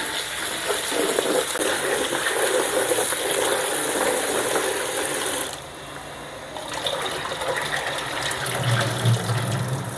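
Kitchen tap running into a plastic basin while hands swish and rub shredded mushrooms in the water, splashing and pouring over into a steel sink. The water noise drops away for a moment a little past halfway, then picks up again.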